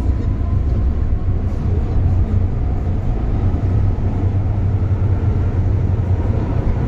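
Hong Kong MTR Island Line M-Train (Metro-Cammell EMU) heard from inside a car while under way: a steady, loud low rumble from the traction equipment and wheels on the rails, the 'strong thunder' noise this car is known for, as the train runs from the station into the tunnel.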